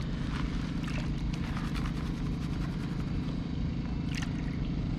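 Water sloshing and trickling as a black plastic gold pan is dipped and swirled, with a few small splashes, over a steady low hum.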